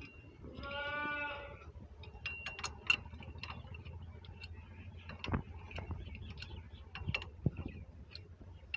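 Sharp metallic clicks and clinks of steel steering parts and tools knocking together while a replacement spindle and tie-rod end are fitted to the harvester. They come irregularly, some with a short ring. About a second in, a short pitched call sounds briefly.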